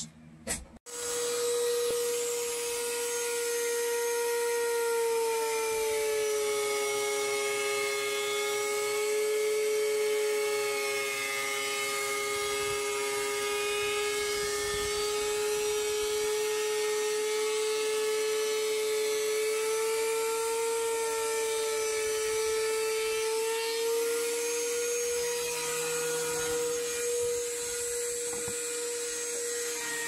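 Benchtop thickness planer running with a steady high whine while planing rough-sawn cedar boards. It starts about a second in.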